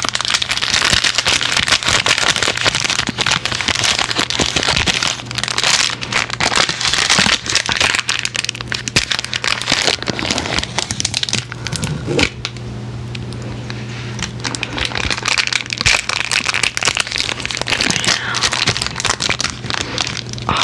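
Reese's candy wrapper crinkling and crackling as fingers work it right at the microphone. The crinkling is dense for about the first twelve seconds, then lighter, with a steady low hum underneath.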